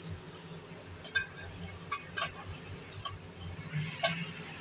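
A spatula stirring a thick milk and biscuit mixture in a frying pan, knocking against the pan about six times in sharp clicks, over a steady low hum.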